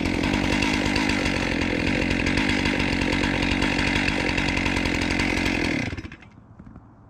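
Stihl chainsaw on an Alaskan chainsaw mill with a ripping chain, running steadily at high speed, then shut off about six seconds in.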